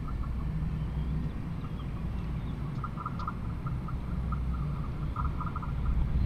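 A bird chattering in quick runs of short, repeated calls, densest about three seconds in and again near the end, over a steady low rumble.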